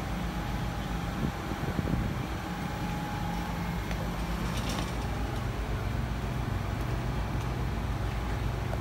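Steady low background rumble, with a few faint clicks about four and a half seconds in.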